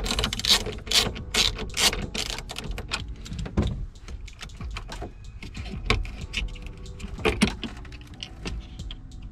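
Hand ratchet clicking in quick runs as it backs off 10 mm nuts, the clicks densest in the first three seconds and sparser after that.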